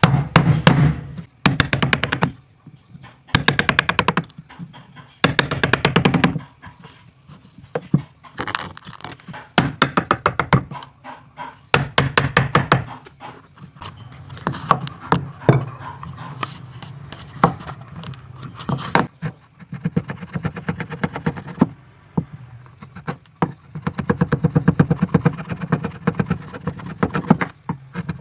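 Steel wood chisel cutting and paring hardwood. It comes in bursts of rapid ticking and crackling as the blade bites through the fibres, with scraping strokes.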